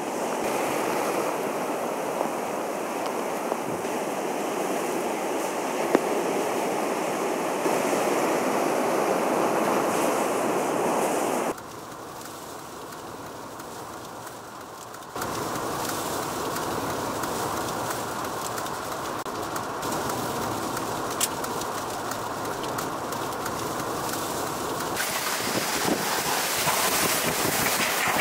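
Hurricane storm surf crashing and roaring, then hurricane-force wind with wind-driven rain. The sound changes abruptly between shots: it drops much quieter about eleven seconds in, comes back up a few seconds later, and grows hissier near the end.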